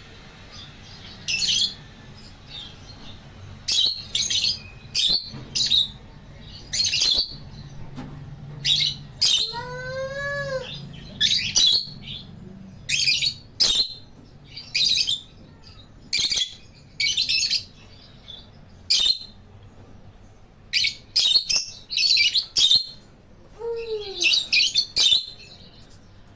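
Pet cockatiel and African lovebirds calling: a steady run of short, shrill chirps, with two clear whistles among them, one rising then falling about ten seconds in and one falling near the end.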